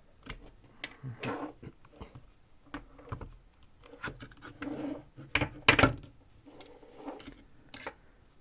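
Handling noise from a small plastic keyboard being unplugged and opened: scattered clicks, knocks and scrapes, with the loudest knocks a little past halfway.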